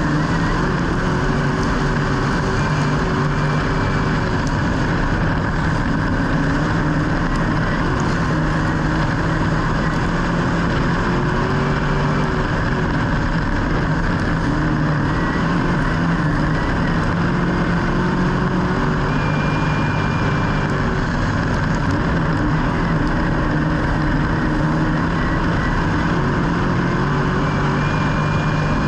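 Motor vehicle engines running in a steady, continuous drone, with faint notes that rise and fall a little.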